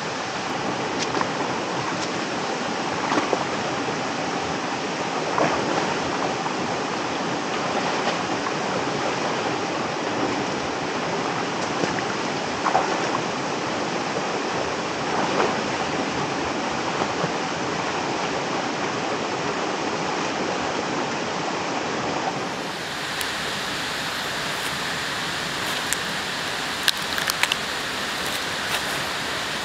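Steady rush of a flowing river. About 22 seconds in the sound changes to a thinner hiss, with a few sharp clicks near the end.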